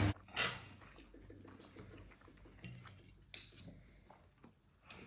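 Scattered light clinks and taps of dishes and cutlery. A sharper knock comes about half a second in, another about a third of the way through, and a few small ones near the end.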